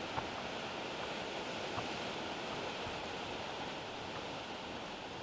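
Steady outdoor ambience: an even rushing noise with a few faint small ticks.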